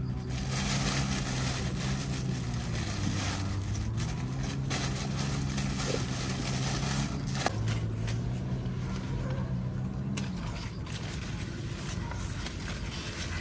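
An engine runs steadily, its pitch dipping and rising a few times, and stops about ten seconds in. Over it, leaves rustle and there are short snaps as long beans are picked by hand from the vines.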